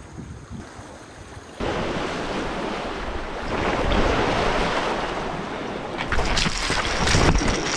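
Waves washing and splashing among shoreline boulders, with wind buffeting the microphone. The sound jumps abruptly louder about a second and a half in, and a few sharp knocks come near the end.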